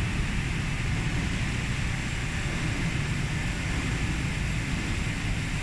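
Steady machine-shop noise: a low rumble with an even hiss over it and a faint high whine, from the big machining equipment and the workshop around it.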